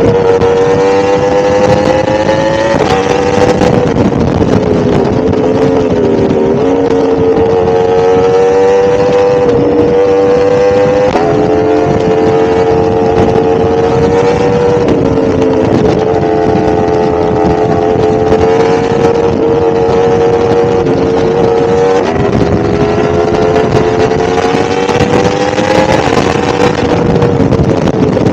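1000cc motorcycle engine running under way at steady road revs, its pitch creeping slowly up and then dropping abruptly several times.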